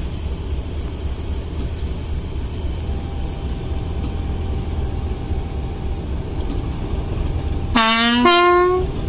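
Class 37 diesel locomotive's English Electric V12 engine idling with a steady low rumble. Near the end its two-tone horn sounds briefly, a lower note then a higher one, each about half a second.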